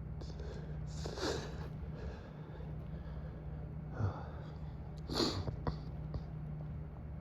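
A man's stifled sneezes: two short, muffled, breathy bursts about a second in and about five seconds in, the second the louder. They are held back to keep the sneezing fit quiet. A motel air-conditioning unit hums steadily underneath.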